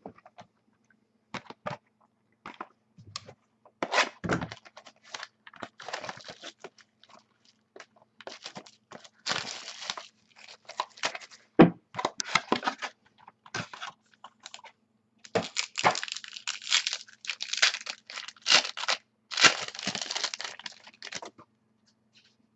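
Sealed box and packs of football trading cards being torn open by hand: irregular tearing and crinkling of plastic wrap and packaging, with a few sharp knocks, over a faint steady low hum.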